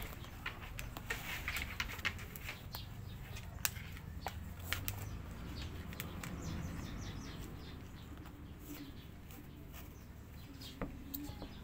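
Scattered light clicks and taps with soft rustling: shoes and their packaging being handled.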